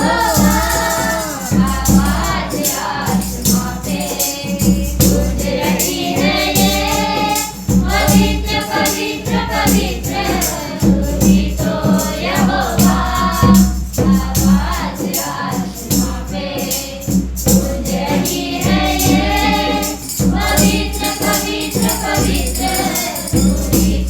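Hindi Christian worship song sung by a group over backing music with a steady low beat and rhythmic tambourine-like percussion.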